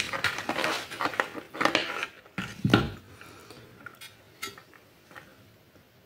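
Clicks and knocks of a fan heater's plastic housing and small tools being handled. A busy run of irregular clatter fills the first three seconds, with one louder knock just before the three-second mark, then a few scattered clicks.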